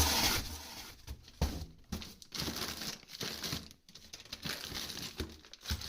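Crinkling and rustling of packaging as plumbing fittings are handled, loudest right at the start and then in short irregular bursts.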